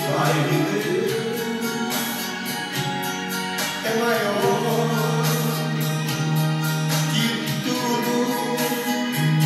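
A man singing a gospel song into a handheld microphone over a backing track, holding long notes.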